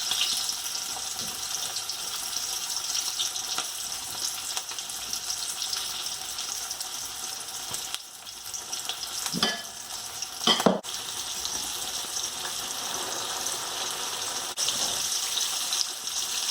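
Flour-coated chicken pieces deep-frying in hot oil, with a steady crackling sizzle. Two short, louder sounds break in about two-thirds of the way through.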